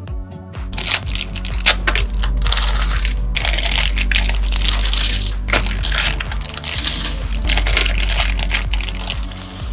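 A clear plastic parts bag crinkling as it is torn open, and small plastic building bricks clattering as they spill out onto the table. The crinkling and clatter start about a second in.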